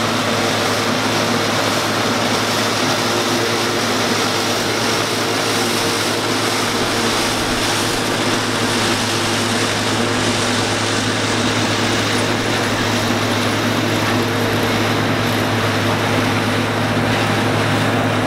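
Allis-Chalmers 190XT tractor engine running steadily under load while its Gehl 750 forage harvester chops corn silage and blows it into the wagon: a continuous engine drone under a broad rushing noise. The sound holds steady as the outfit passes, the highest hiss thinning a little in the second half.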